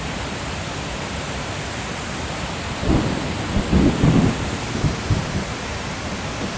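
Steady hiss of heavy rain, with an uneven low rumble that swells about three seconds in and fades over the next couple of seconds.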